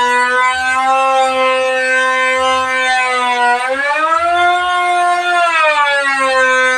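Woodworking machine running with a loud, steady whine whose pitch rises about halfway through, holds for a couple of seconds, then drops back.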